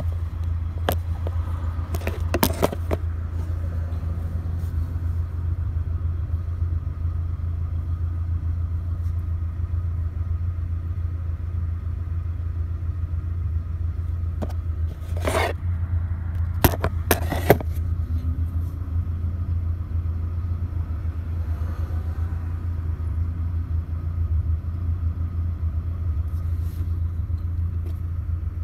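Pickup truck engine and road noise heard from inside the cab: a steady low rumble, with a few short knocks and clicks about two seconds in and again around the middle.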